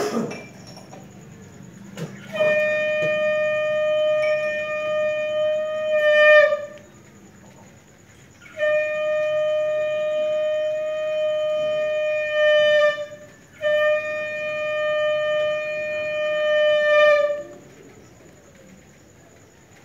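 A conch shell blown in three long, steady notes of about four seconds each, each swelling louder just before it breaks off.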